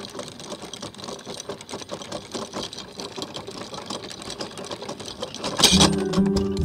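Sailboat anchor windlass hauling in chain, the links clattering quickly and steadily over the gypsy and bow roller as the anchor is raised. A louder bang comes near the end.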